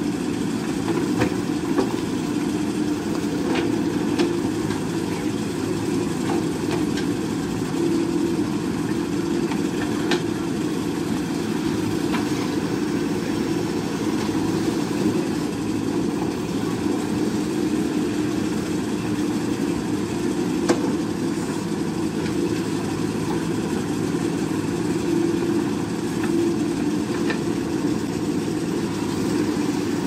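JCB 3DX backhoe loader's diesel engine running steadily while the backhoe arm digs rock and swings it to the tipper truck. A few sharp knocks of bucket and stone are heard along the way.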